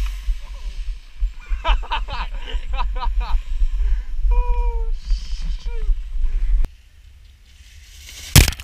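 Wind buffeting the microphone of a moving action camera on a ski slope, a steady low rumble, with a few people's voices calling out over it, one a drawn-out shout. The rumble stops suddenly about two thirds of the way in, and a single sharp pop comes near the end.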